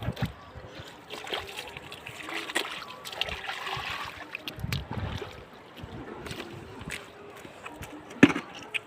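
Shallow flood water splashing and sloshing irregularly, with small clicks and trickles, and one sharp splash about eight seconds in.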